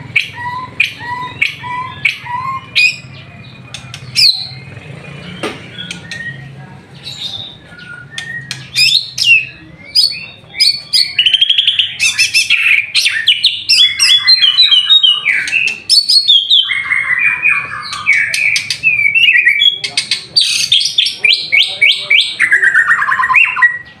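White-rumped shama (murai batu) singing continuously: a string of evenly repeated whistled notes, about three a second, then varied phrases, and from about halfway on, loud rapid trills and fast runs of notes.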